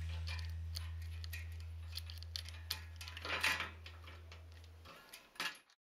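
Bicycle roller chain clicking and rattling against the rear sprocket as it is fitted back on by hand, with a cluster of clinks about three and a half seconds in. A low held note of background music fades out underneath, and the sound cuts to silence near the end.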